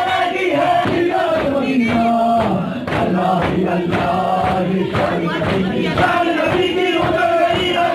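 An Urdu noha, a Muharram lament, chanted by male voices in long drawn-out notes over a crowd, with a steady rhythmic beat of strikes underneath.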